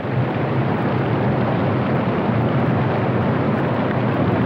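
Loud, steady rush of water pouring over a waterfall.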